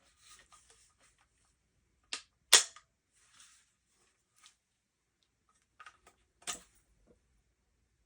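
Hard clacks and clicks from the Panzer EGX 500 bullpup shotgun and its parts being handled: two sharp clacks about two seconds in, the second the loudest, then a few lighter clicks and a knock around six seconds, with faint rustling between.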